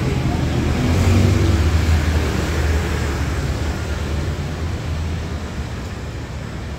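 Street traffic: a motor vehicle's engine running close by, loudest about a second in and then slowly fading as it moves off.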